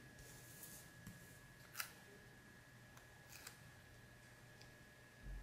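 Near silence with a handful of faint paper clicks and taps from fingers handling stickers and pressing one onto a paper planner insert, the sharpest about two seconds in, and a soft low thump near the end.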